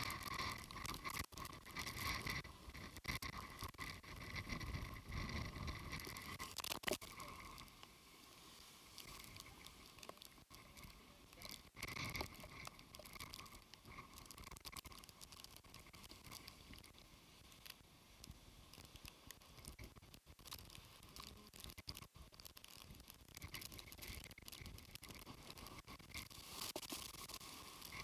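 Typhoon wind buffeting the microphone over rough, breaking sea waves, muffled and fairly faint. The gusts are heaviest in the first several seconds, then ease, with a few louder surges later.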